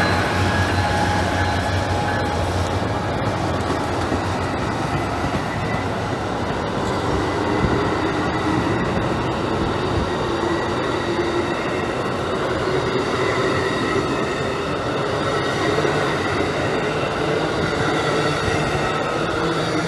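Amtrak passenger train cars rolling past at close range: a steady rumble of wheels on rail with a thin, high, steady whine. The diesel locomotive's low drone fades out in the first couple of seconds.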